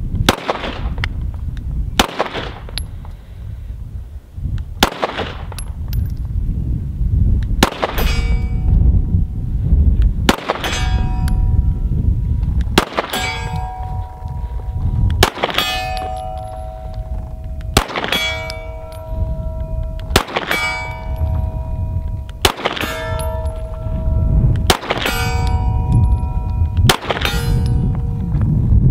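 Stoeger STR-9 9mm pistol fired slowly, about a dozen single shots, one every two to two and a half seconds. The first three shots get no answer: misses while getting on target. From about eight seconds in, each shot is followed by the ringing clang of a steel target being hit at about 80 yards. A steady low rumble runs underneath.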